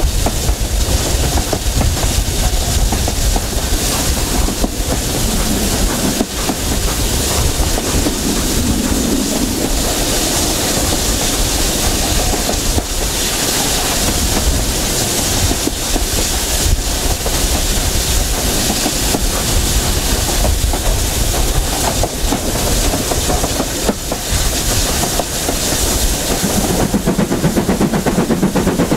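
Steam-hauled train behind BR Standard Class 7 Pacific 70013 running at speed: wheels clicking over the rail joints under a steady rush of noise. Near the end a rapid, regular beat comes in louder.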